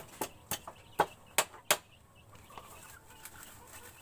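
Claw hammer striking nails into a wooden nest box: about six sharp blows in quick, uneven succession in the first two seconds, then it stops. The nails being driven are loose ones on the box that he is re-securing.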